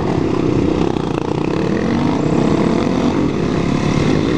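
Single-cylinder supermoto motorcycle engine under way, accelerating away from an intersection, its pitch climbing about halfway through, with wind rush on the helmet microphone.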